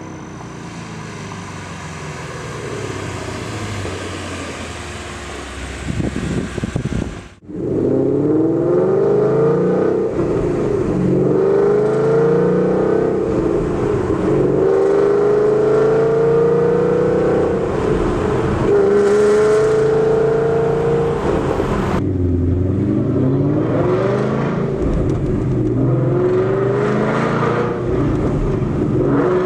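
2015 Mustang GT's 5.0 V8 through ARH long-tube headers and a Corsa Xtreme catback exhaust. It runs at a lower, steadier level for the first several seconds, then after a brief break accelerates repeatedly, the engine note climbing in pitch and dropping back each time.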